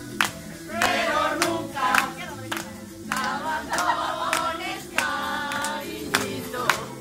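Upbeat song with several voices singing and a sharp beat about twice a second, with hands clapping along.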